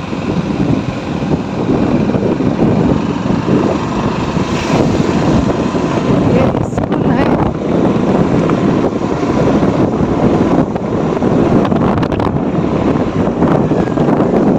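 Motorcycle riding along, its engine running under heavy wind noise buffeting the microphone: a loud, steady rumble.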